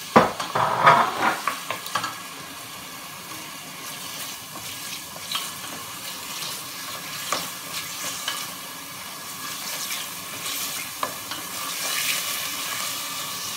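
Diced meat and chicken sizzling as they fry in oil in a stainless steel pot, stirred and scraped with a wooden spatula. The stirring is loudest in the first two seconds. After that a steady sizzle runs with occasional clicks of the spatula against the pot.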